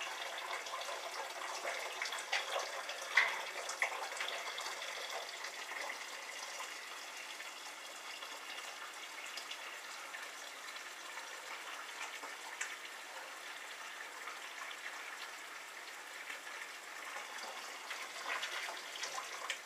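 Liquid running steadily from a tap into a stainless steel brewing pot, with a few light clicks.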